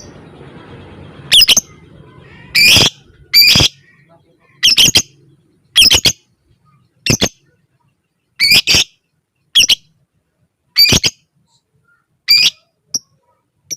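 Lovebird calling in a string of short, sharp squawks, about one a second and some in quick pairs: the clipped 'ngetik' style of lovebird calling.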